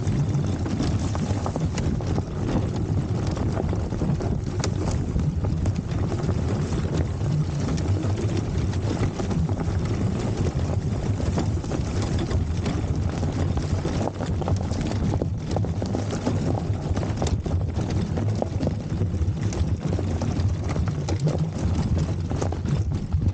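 Wind buffeting the microphone over a steady low rumble as a fat-tyre electric scooter towing a dog trailer rides across rough, grassy ground, with scattered knocks and rattles from the bumps.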